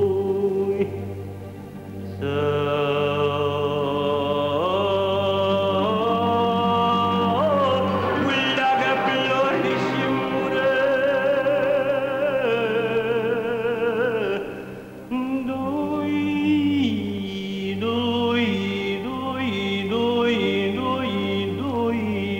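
A voice singing a slow melody in long, held notes with wavering pitch and sliding glides between notes, over a steady low drone, with short breaks between phrases about two seconds in and again in the middle.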